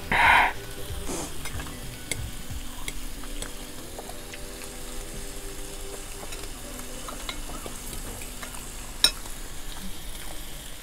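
Pork slices sizzling on a round tabletop grill pan, with scattered small pops. A short loud burst comes near the start, and a single sharp click about nine seconds in.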